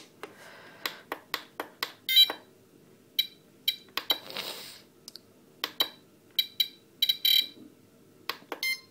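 FlySky FS-T6 radio transmitter's menu buttons being pressed: a string of clicks, many with a short electronic beep, as the menu is stepped through to select a model memory.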